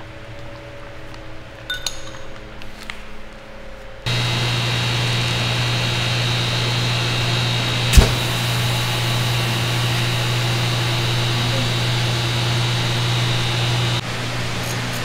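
Steady machine hum with a low drone and a faint high whine. A louder hum cuts in abruptly about four seconds in, with a single sharp click near the middle, and the level drops back abruptly near the end.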